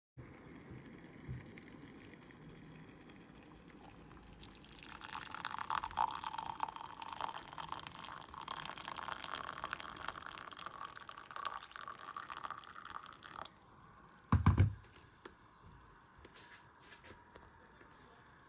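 Hot water being poured into a cup for about nine seconds, stopping suddenly. A single low thump follows about a second later.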